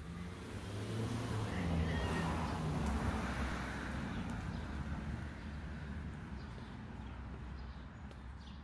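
A car passing by, its engine and tyre noise growing louder to a peak about two to three seconds in, then slowly fading.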